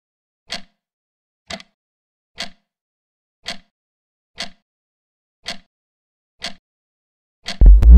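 Countdown-timer ticking sound effect, one short tick about every second. Just before the end a loud electronic tone with a falling pitch starts, marking the time running out.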